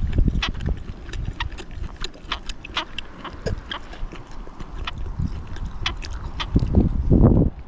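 Sharp, irregular clicks, several a second, over a low rumble of wind buffeting the microphone. The wind swells into a louder gust near the end.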